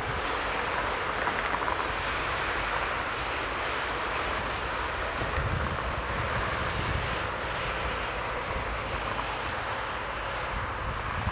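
Airbus A300-600ST Beluga's two General Electric CF6-80C2 turbofans running at low power as the aircraft taxis: a steady rushing hum, with wind buffeting the microphone low down.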